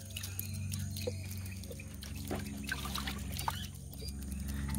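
Water dripping and trickling from a wet cast net as it is gathered up and lifted in a small boat, with light scattered clicks, over a steady low hum.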